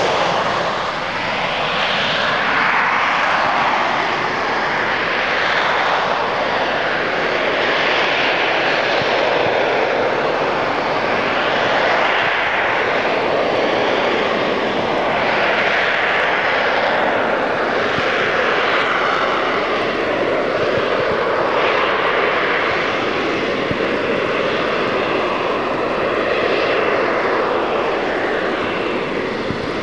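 Harrier GR9A jump jet hovering, its Rolls-Royce Pegasus vectored-thrust turbofan giving a loud, steady jet roar. The roar swells and eases in slow waves every few seconds, and a whine wavers in pitch over the second half as the jet turns in the hover.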